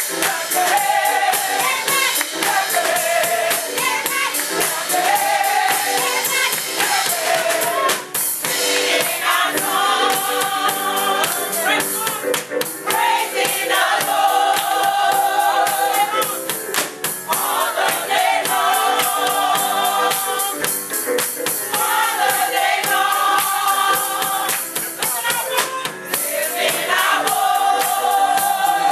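Small gospel choir singing in harmony, with steady rhythmic hand clapping keeping the beat.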